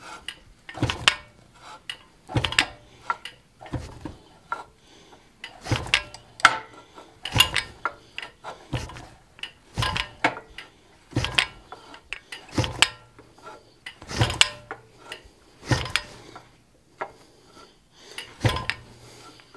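Fly press driving a chisel into a red-hot square iron bar, stroke after stroke, to cut a groove down the bar. It gives a sharp metallic clank about every second or so, with short pauses between strokes as the bar is moved along.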